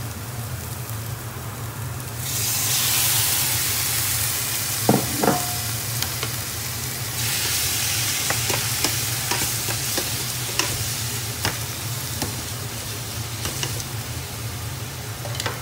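Raw shell-on prawns sizzling in hot oil with chopped onion, ginger and garlic in a stainless steel frying pan while a spatula stirs them, scraping and tapping against the pan. The sizzle swells loud about two seconds in and again about seven seconds in. A steady low hum runs underneath.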